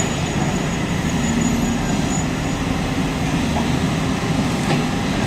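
Steady low rumble of an excavator's diesel engine working on demolition, with a couple of faint knocks near the end.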